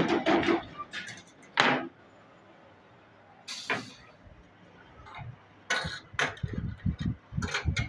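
A spot welder buzzing in short bursts as steel wires are welded onto a wire-rack frame, followed by scattered clicks. Near the end, steel wire rods clink and knock as they are laid into the frame on the metal table.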